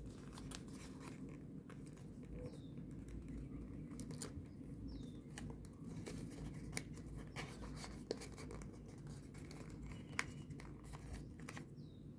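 Faint rustling and light clicks of folded paper as origami sonobe units are handled and their flaps pushed into pockets, over a low steady room hum.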